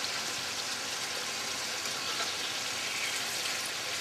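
Roman artichokes sizzling steadily in oil and water in a frying pan, halfway through their cooking, as they are being turned.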